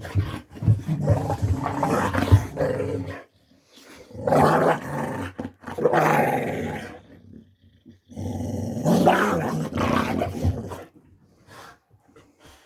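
Dog making long, drawn-out 'wah wah' growling vocalisations while playing, in three bouts of about three seconds each.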